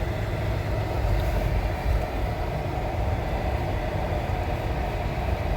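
Steady car road and engine noise heard from inside the cabin while driving.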